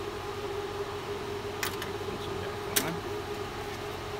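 Steady hum of a MIG welder's machine, powered up, while the feed wire is pulled back by hand on its spool, with a few sharp clicks from the spool and wire-feed drive being handled, the loudest almost three seconds in.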